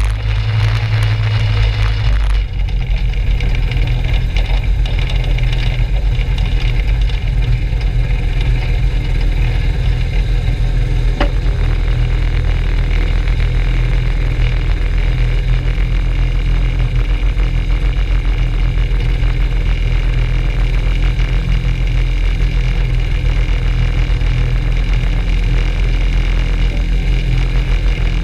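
Rotax 582 two-stroke engine of a Skyranger ultralight running steadily on the ground at low power, heard close up from the wing-mounted camera. Its note drops about two seconds in, then holds steady.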